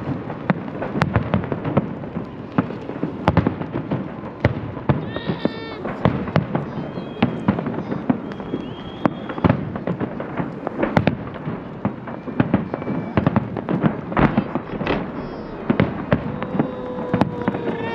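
Fireworks salute: a rapid, irregular string of sharp bangs and pops from shells bursting overhead, several a second at times, over a steady background hubbub.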